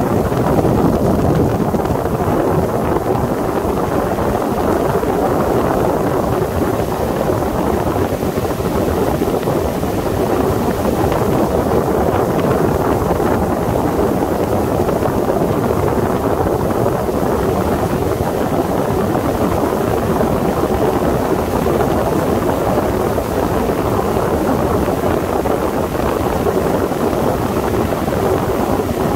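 Steady rush of wind on the microphone over the engine of a Sea Ray 21 motorboat under way.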